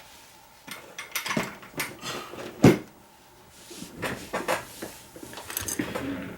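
Hard objects being handled and set down on a workbench: scattered clicks and knocks, with one sharper knock a little under three seconds in.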